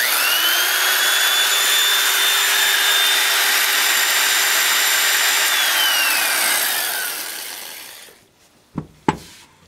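Rebuilt Biax power scraper's electric motor and drive head test-run without the scraper shoe, working properly: it starts suddenly and spins up within a fraction of a second to a steady high whine over a hiss. After about five seconds it is switched off and the whine falls in pitch as it winds down over about two seconds, followed by a couple of knocks near the end.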